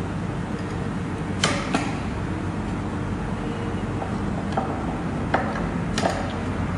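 String cutters snipping off the excess ends of ukulele strings at the headstock: several short, sharp clicks, two close together about a second and a half in and another near the end, over a steady low hum.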